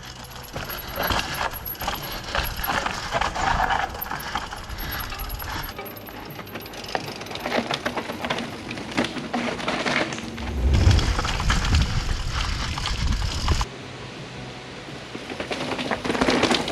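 Mountain bike rattling and clattering down a rocky chute: chain and drivetrain jangling and tyres knocking over rock in quick, irregular clicks, with a low rumble for a few seconds past the middle.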